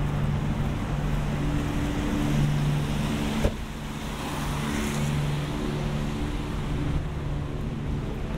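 Street traffic on a rain-wet road: a low, steady engine hum with the hiss of tyres, a sharp click about a third of the way in, and a car hissing past just after it.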